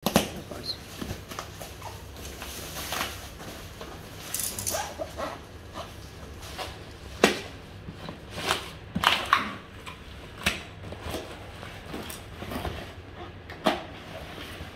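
Packing tape being peeled and cut with scissors on a cardboard parcel, a string of sharp rips, snips and scrapes with rustling of the box and its wrapping between them.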